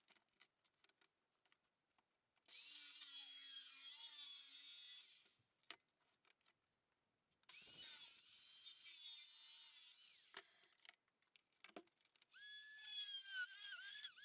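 A power tool working marine plywood panels in two runs of a few seconds each, with a few knocks between them. A wavering, pitched whine starts near the end.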